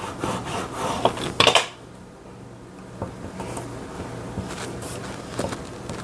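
Hand brayer rolling and rubbing over a laminated vinyl sticker sheet on a desk, with a brief louder clatter about one and a half seconds in. After that come quieter rubbing and a few light ticks as fingers press the laminate flat to push out an air bubble.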